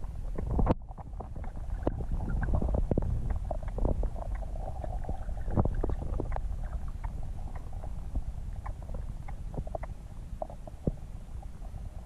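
River current heard underwater through a submerged camera: a steady low rumble with many small, irregular clicks and ticks. A faint even hum joins it for a couple of seconds near the middle.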